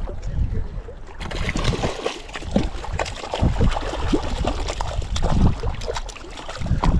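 Wind buffeting the microphone, with irregular water splashes and sloshing from a hooked cutthroat trout thrashing at the shoreline as it is landed.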